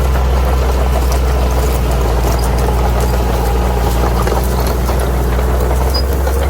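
Bulldozer's diesel engine running at a steady speed, a deep, even drone with faint scattered ticks and crackles above it.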